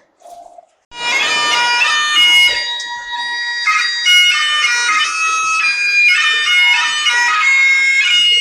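Bagpipe music starting about a second in: a steady drone under a skirling melody.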